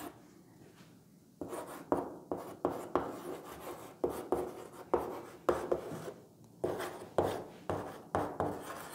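Chalk writing on a blackboard: a run of short scratching strokes and taps, several a second, starting about a second and a half in.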